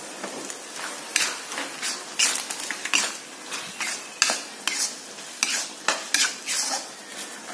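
Metal spatula scraping and clacking against a wok as vegetables, meatballs and egg are stir-fried, about two strokes a second, over a light sizzle.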